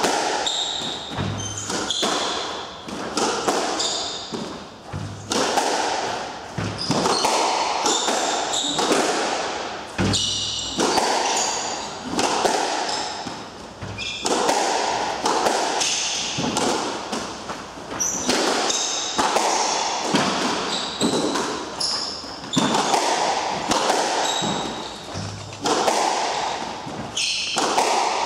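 Squash rally: the rubber ball cracking off rackets and thudding against the walls about every second, with sneakers squeaking on the wooden court floor, all echoing in the enclosed court.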